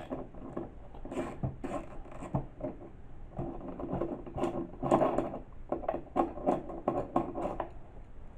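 Spanner or ratchet undoing the two lower 10 mm seat bolts on a scooter: a run of irregular metallic clicks and rattles, busiest in the middle.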